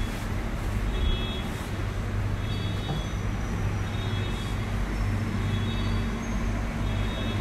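Steady low electrical or machinery hum of a supermarket interior, with a faint short high-pitched squeak repeating a little more often than once a second.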